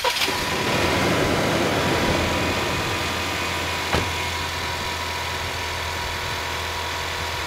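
Pickup truck's engine just started and idling steadily, a little louder in the first couple of seconds before settling; a single click about four seconds in.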